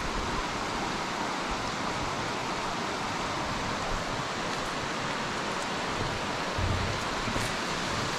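Shallow river water running over a rocky bed, a steady rushing hiss.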